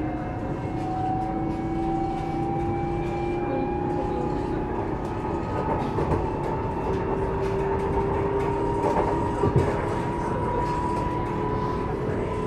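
CAF Civia electric train's Siemens traction converters and motors whining, several tones rising slowly and steadily in pitch as the train picks up speed, over a rumble of wheels on rail. A few short knocks from the track, the clearest about nine and a half seconds in.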